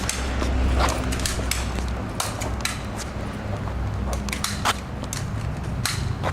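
BB guns firing: about ten sharp snapping shots at irregular intervals, over a low rumble.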